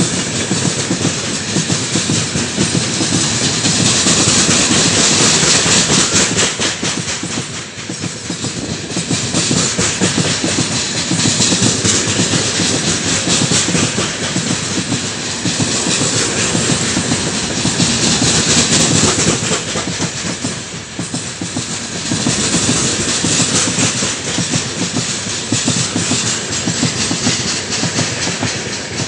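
Heavy freight train of loaded open-top gondola wagons rolling past at speed: a loud, continuous rush of steel wheels on rail with a rapid clickety-clack of wheelsets over the rail joints, swelling and easing as the wagons go by.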